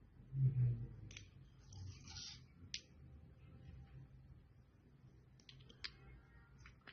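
A dull thump about half a second in, then a few scattered sharp clicks.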